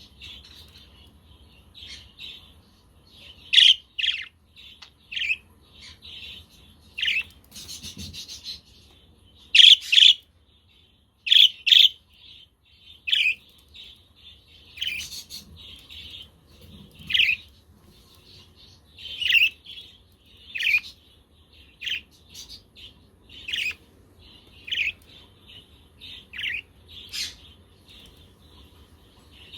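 Budgerigars chirping: short, sharp calls about once a second, a few of them much louder than the rest.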